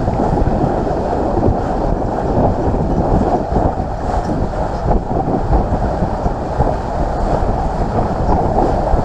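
Steady rumbling noise aboard a moving boat: the boat's motor and water noise mixed with wind on the microphone.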